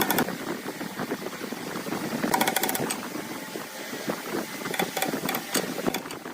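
Woodworking power tool running, a dense rapid clatter of ticks with a few sharper bursts about two and a half seconds in and again near the end.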